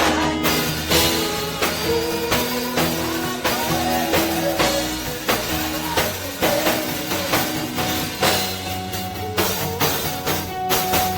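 Live gospel praise band playing an instrumental groove, with drum kit, bass and guitar and held keyboard chords, keeping a steady beat.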